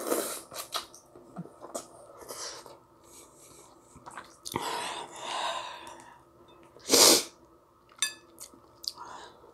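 Ramen noodles slurped off chopsticks and chewed, with a short loud burst of breath through the nose and mouth about seven seconds in. Near the end, a few light clicks of chopsticks against the glass bowl.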